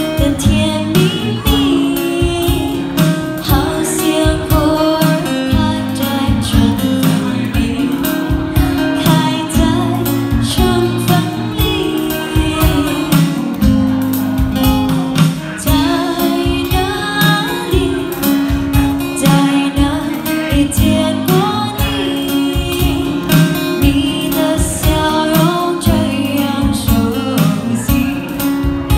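Live band playing a song: a woman singing into a microphone over a strummed acoustic guitar and a steady drum beat.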